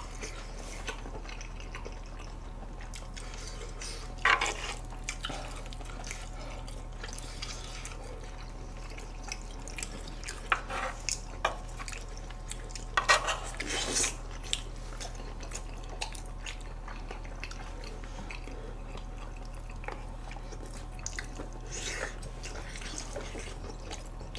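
Close-up eating sounds: wet chewing and mouth smacks over spicy pork cartilage (odolbbyeo), with scattered clicks of spoons and chopsticks against a grill pan and dishes, the loudest clatters about four seconds in and again around thirteen to fourteen seconds in. A steady low electrical hum lies underneath.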